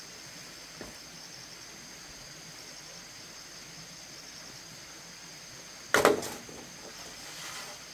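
Steady high buzz of insects. About six seconds in, hollow bamboo poles knock loudly twice as one is laid onto a pile of poles, followed by a brief rattle.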